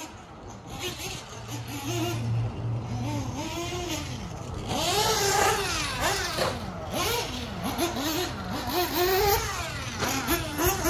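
Small nitro engine of an HB Racing D819RS 1/8-scale RC buggy revving up and down in repeated throttle bursts, its high pitch rising and falling, loudest about halfway through.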